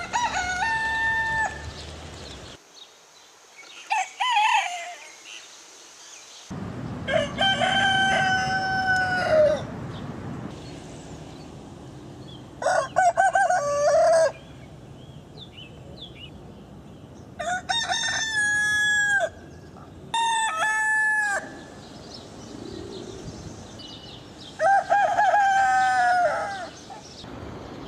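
Roosters crowing: about seven separate crows, each one to two and a half seconds long, spliced one after another with the background changing abruptly between them. The crows differ in pitch and shape, one short and thin, another broken into stutters.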